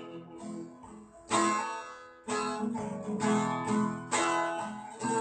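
Acoustic guitar strummed in a steady rhythm, with a fresh chord struck about once a second and no voice over it.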